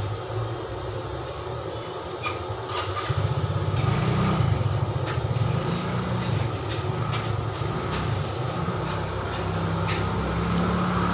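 A low mechanical rumble, engine-like, that swells about three seconds in and stays loud, with a few faint clicks over it.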